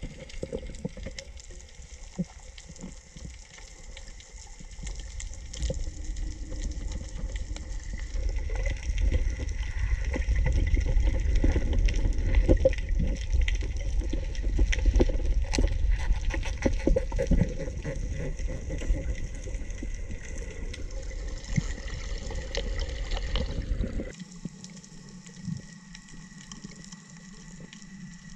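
Underwater sound through a camera's waterproof housing: a muffled rumble of moving water with many scattered clicks and crackles and a faint steady high tone. It drops suddenly to a quieter hiss about 24 seconds in.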